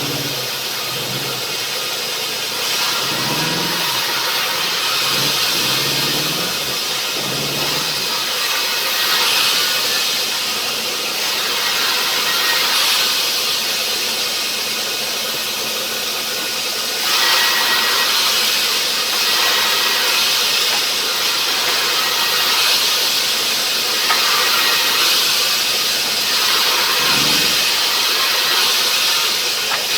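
Sawmill saw running and cutting rubberwood, a loud steady hissing whine that swells with each cut, loudest from a little past halfway. A low wavering drone from the mill's machinery comes and goes in the first few seconds and again near the end.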